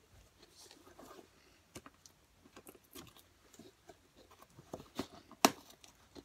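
A small cardboard box being picked at and pried open by hand, fingers working at the packing tape: irregular scratching, crinkling and clicks, with one sharp, loud snap about five and a half seconds in.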